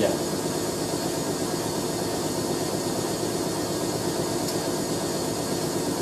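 Hoover A3060 Electronic 1100 front-loading washing machine in a long high-speed spin, its motor and drum running with a steady whine and rumble.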